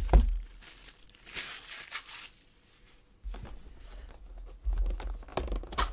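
Plastic shrink wrap crinkling as it comes off a cardboard trading-card box, with a few short knocks and clicks from handling the box near the end.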